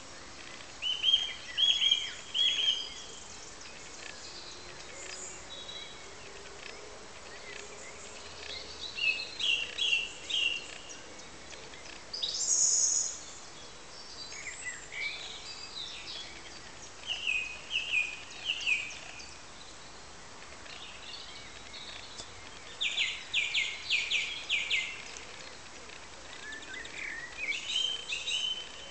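A small songbird singing short phrases of quick repeated high notes, one every few seconds, over steady low background noise.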